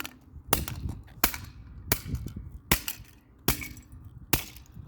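Repeated hard blows smashing a plastic toy cash register: six sharp cracking strikes, about one every three-quarters of a second.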